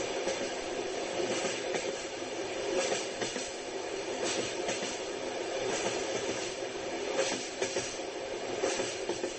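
Passenger train running along the track, heard from inside the carriage: a steady rolling rumble with the wheels knocking now and then over rail joints.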